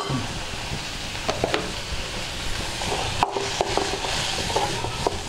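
Mint leaves, shallots and grated coconut sizzling in oil in a metal pan while a metal ladle stirs them, knocking against the pan a few times and scraping it in the second half.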